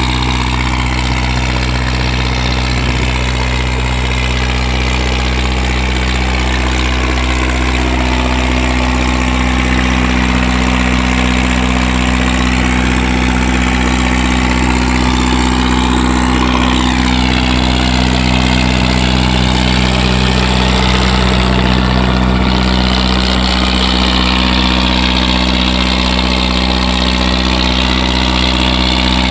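Engine of a vegetable vendor's vehicle idling, a steady low rumble that holds the same pitch throughout.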